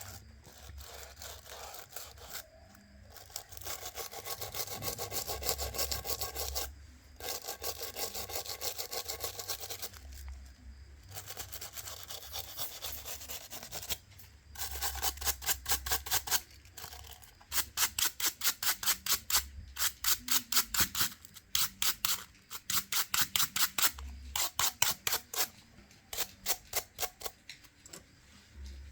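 Rapid back-and-forth rubbing strokes on a smartphone's body, in bouts with short pauses, settling into separate strokes about three to four a second in the second half.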